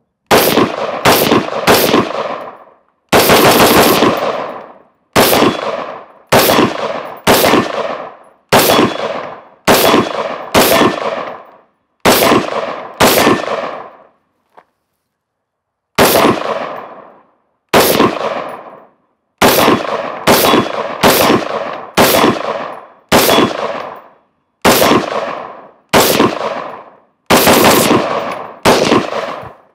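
Daniel Defense Mk18 pistol, a 10.3-inch-barrelled 5.56 AR, fired semi-automatically with XM193 ammunition: a string of about thirty sharp shots, some single and some in quick doubles, each trailing off briefly, with a pause of about two seconds midway through.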